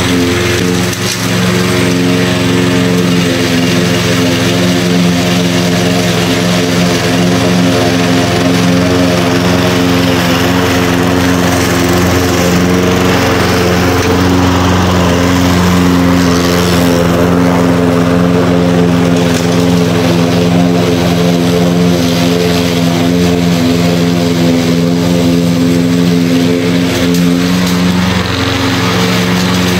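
Walk-behind lawn mower's small engine running loud and steady at a constant speed.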